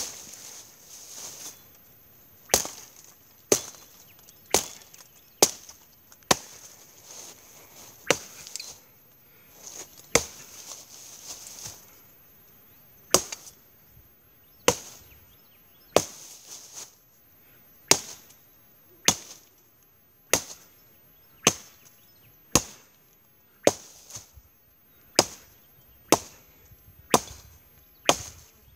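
Ozark Trail 18-inch machete chopping into solid wood on the ground: about twenty sharp chops, roughly one a second, with a few short pauses.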